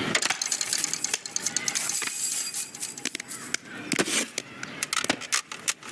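A rapid, uneven run of small hard clicks, taps and rattles from a film sound-effects track, thinning out about halfway through and picking up again near the end.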